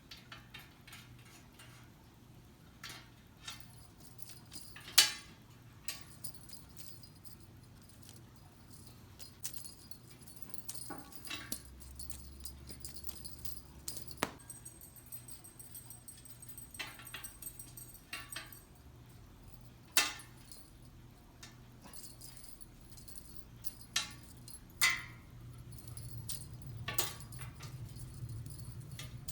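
Scattered light clicks and jingles, a dozen or so, the sharpest about five seconds in and again about twenty seconds in, over a faint steady low hum.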